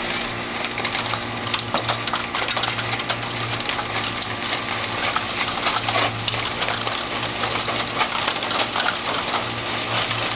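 Metal masonry tools scraping and clinking against brick and mortar, a dense run of rapid clicks and scrapes, over a steady low machine hum that drops out now and then.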